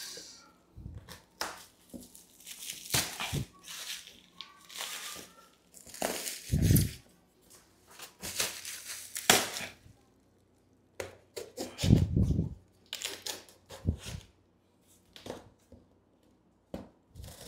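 A knife slicing along the tape and seams of a cardboard box in irregular scraping strokes, with cardboard rustling and a couple of dull thumps from handling the box about a third and two-thirds of the way through.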